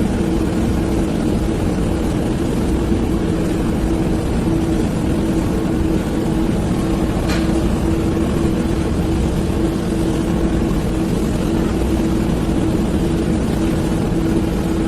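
A heavy machine's engine running steadily with a low, even drone, and a single sharp click about seven seconds in.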